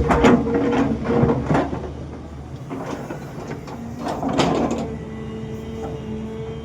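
Excavator's diesel engine running steadily, with bursts of scraping and clattering from the bucket and machine working soil: a cluster in the first second and a half, a short one about three seconds in and another about four and a half seconds in.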